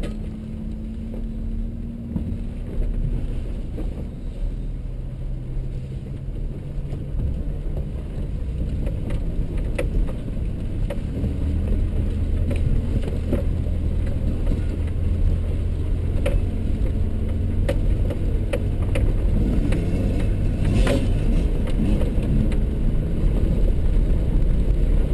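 A 4x4's engine running as it drives a rough, rocky dirt trail, heard from inside the cab. Its hum drops in pitch a few seconds in and grows louder and deeper from about halfway through. Scattered knocks and rattles come from the bumpy ride.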